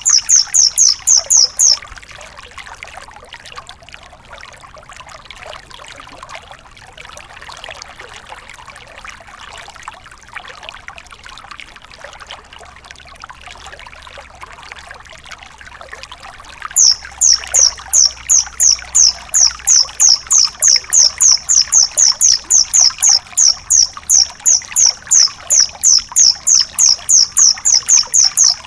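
A singing orthopteran insect (cricket type) calls in a fast, even train of short, high, shrill pulses, about four a second. It stops about two seconds in and starts again a little past halfway, over a steady background hiss.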